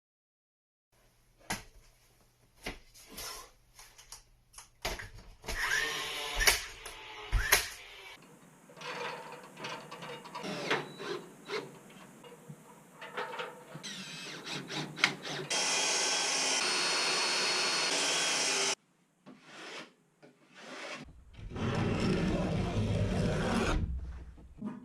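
Woodworking sounds from building a timber frame, changing abruptly: first a run of sharp knocks and taps, then tool noise. About two thirds in, a power tool runs with a steady whine for about three seconds and cuts off suddenly; a low rumbling noise follows near the end.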